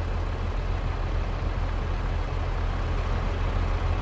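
Farm tractor's diesel engine running steadily under way, a constant low drone with no change in pitch.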